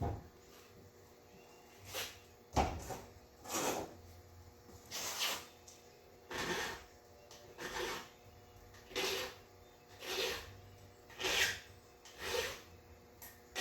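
Hand file rasping on a chainsaw chain: a steady run of about a dozen even strokes, roughly one a second, each rising in pitch as the file is pushed through.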